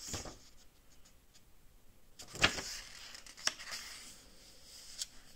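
Book pages being turned and handled: a few short papery rustles and taps, the loudest about two and a half seconds in.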